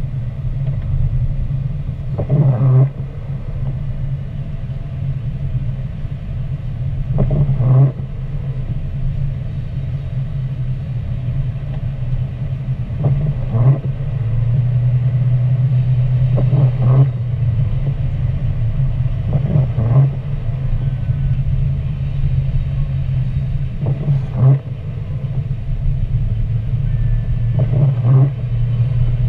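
Steady low drone of a car's engine and tyres on a wet road, heard inside the cabin, with the windshield wipers sweeping across the glass about seven times, a few seconds apart.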